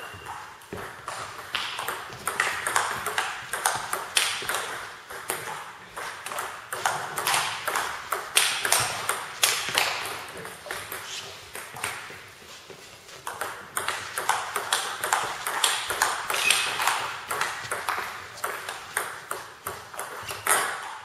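Table tennis ball being struck back and forth in rallies: quick sharp clicks off the bats and the table, several a second, with two short breaks between rallies. One bat carries a Nittaku Monophonic pimples-out rubber on the backhand, used for chop-blocks and side-blocks.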